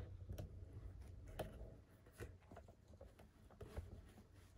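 Faint, scattered soft taps and rustles over a low steady hum, close to silence; the clearest taps come about a second and a half in and again near the end.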